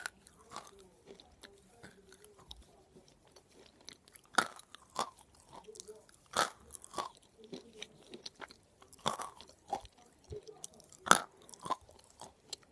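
Close-up chewing and crunching of pieces of hard edible clay (china clay and slate pencils), a string of irregular sharp crunches with quieter mouth clicks between them.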